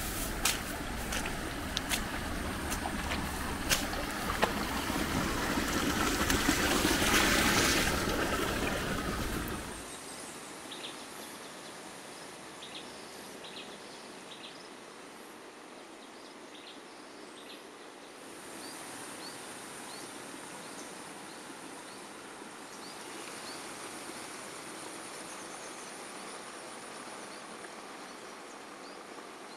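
Outdoor rural ambience in edited sections. First comes a louder rushing noise with scattered clicks that swells around seven seconds and drops away about ten seconds in. Then a quiet background with short bird chirps, joined about eighteen seconds in by a steady high hiss.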